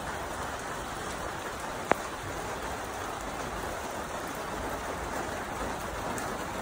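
Steady rain falling on a wet, flooded street, an even hiss of rain, with one sharp click about two seconds in.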